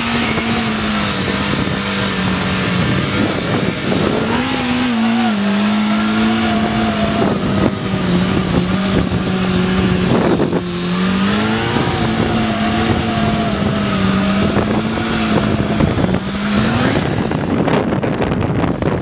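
Kawasaki ZX-6R 636 inline-four sport bike engine held at a steady high rev through a long wheelie, its pitch stepping slightly up and down a couple of times. Near the end the steady note gives way to a rougher, changing engine sound.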